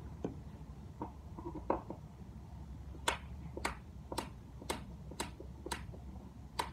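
A screw being backed out of a sliding glass door latch: a few faint clicks, then from about three seconds in, sharp regular clicks about two a second.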